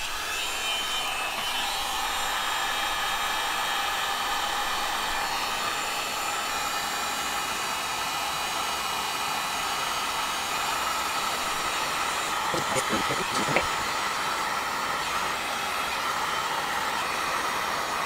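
Electric heat gun running steadily on its 1000-watt setting: an even rush of blown air with a constant motor tone.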